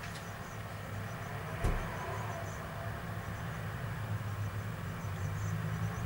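Steady low rumble of street traffic, with small high chirps repeating throughout and a single knock about a second and a half in.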